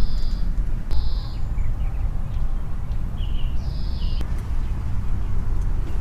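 Outdoor background: a steady low rumble, with a few short high bird calls about a second in and again three to four seconds in.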